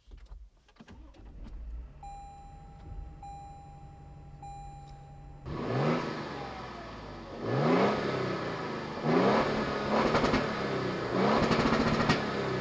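Stock 2022 Toyota Tundra twin-turbo V6 heard from inside the cab: started, idling quietly under a few repeating beeps, then revved in about five quick blips from about five and a half seconds in.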